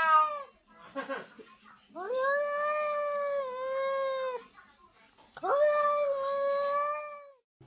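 Grey tabby cat meowing: the end of one call, then two long, drawn-out meows of about two seconds each, held at a steady pitch.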